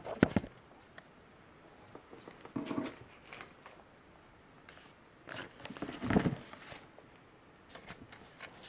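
Handling noise as a laptop is moved about: a few sharp clicks near the start, a brief rustle about two and a half seconds in, and a longer run of knocks and rubbing, the loudest part, around six seconds in, with a few light ticks near the end.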